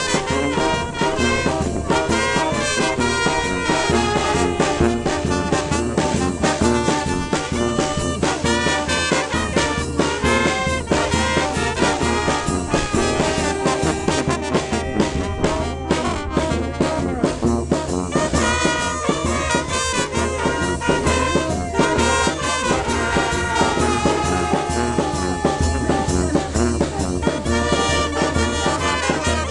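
Village wind band of trumpets, saxophones and a trombone playing a tune live, close up.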